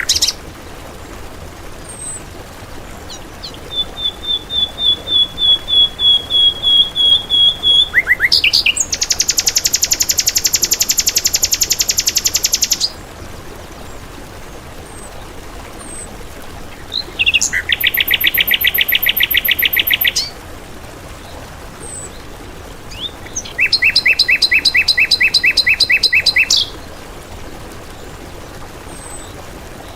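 Songbird song: loud, fast trills of rapidly repeated high notes in four bursts of about three to four seconds each, with pauses between and a few faint short chirps in the gaps.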